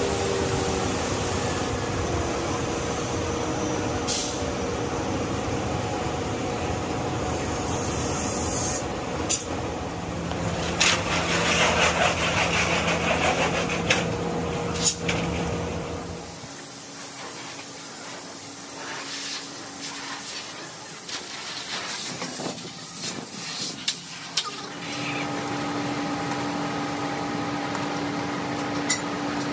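Tyre-retreading workshop noise: a steady machine hum with a stretch of compressed-air hiss about ten to sixteen seconds in, and scattered metal clanks as tyres and fittings are handled.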